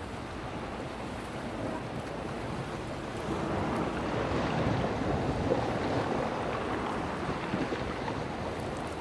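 Sea waves washing in: a rushing noise that swells from about three and a half seconds in, peaks midway and eases toward the end.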